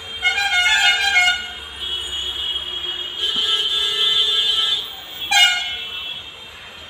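Vehicle horns honking: a pitched honk near the start, a long held honk through the middle, and a short loud blast about five seconds in, over steady background noise.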